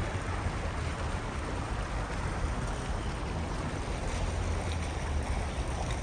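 Steady splashing and trickling of small fountains in a park pool, over a constant low rumble.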